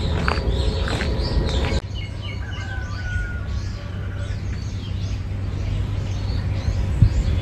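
Footsteps on a gravel path for the first couple of seconds. Then many small birds chirp in short, repeated calls over a steady low rumble.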